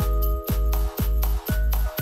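Electronic background music with a steady kick drum beat, about two beats a second, under held synth notes.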